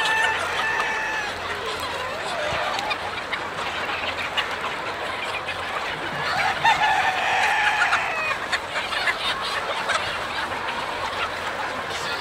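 A very large flock of chickens clucking and squawking all at once in a dense, continuous din. Roosters crow over it, once near the start and again in a longer crow about halfway through.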